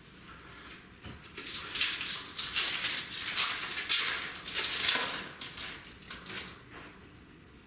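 Crinkling and rustling of Magic: The Gathering booster pack wrappers and trading cards being handled: a run of crackling from about a second in to about five seconds in, then quieter handling.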